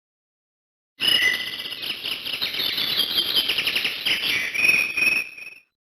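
Samsung SCH-X250 ringtone of animal chirping: rapid high-pitched trills and chirps like birds or crickets. It starts abruptly about a second in and stops suddenly after about four and a half seconds.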